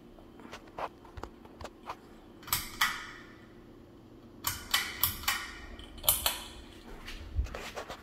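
Harbor Breeze ceiling fan's pull-chain switches being pulled: a few small clicks, then several groups of sharp clicks with the bead chains rattling, over a steady low hum.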